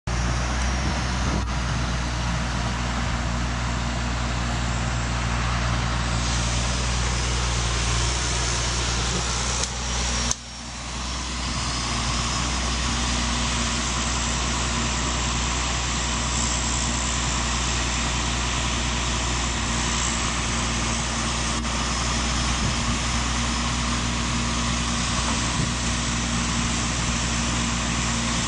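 Atlas Copco L8 drilling rig running steadily: a constant low diesel engine hum under a dense, hissing mechanical noise. About ten seconds in the sound cuts out for an instant and comes back.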